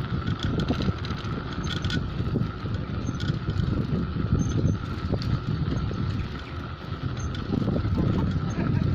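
Wind buffeting the microphone with steady rolling noise from a ride along a street.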